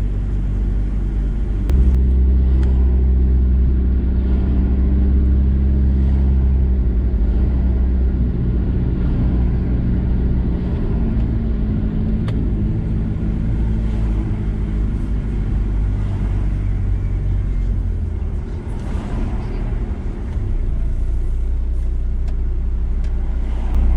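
VW T4 campervan's engine and road noise heard from inside the cab while driving: a steady low drone that grows louder about two seconds in and eases off briefly near the end.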